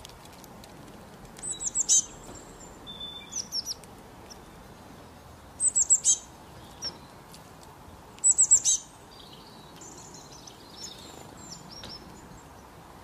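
Songbirds chirping: three louder bursts of quick, high, falling chirps, about one and a half, six and eight and a half seconds in, with softer chirps between, over a steady faint hiss.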